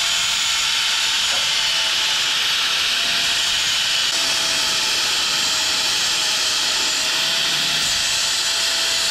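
Angle grinder grinding down a link of a motorcycle drive chain to cut it: a steady, hissing metal-on-abrasive grind over the motor's constant whine, cutting off suddenly near the end.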